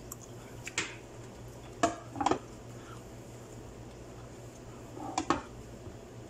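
Spoon and ceramic plate being handled: a few light clinks and knocks, one about a second in, a pair around two seconds, and another pair near five seconds.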